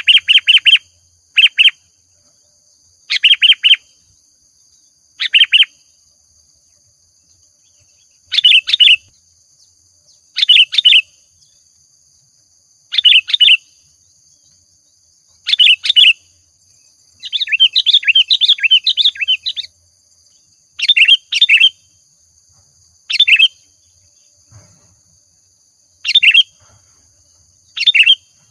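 Sooty-headed bulbul (kutilang) singing: loud, short phrases of quick bubbly notes repeated every two to three seconds, with one longer run of chattering notes a little past the middle. Faint steady high-pitched tones sit underneath.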